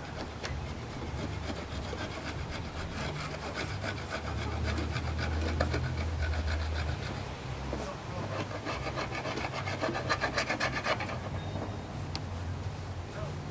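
Hive tool scraping sticky propolis off a wooden beehive body in quick, repeated strokes. It comes in two spells, the second and busier one starting around eight seconds in.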